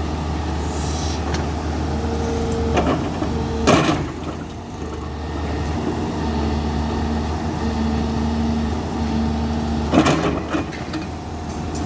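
Hyundai excavator's diesel engine running with a steady low drone and a higher tone that comes and goes, broken by two sharp metallic clanks about four and ten seconds in.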